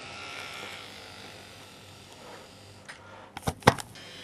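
Faint whirr of an N gauge model train running on the track, a little stronger in the first second or so. About three and a half seconds in comes a quick cluster of three or four sharp clicks and knocks, the loudest sound.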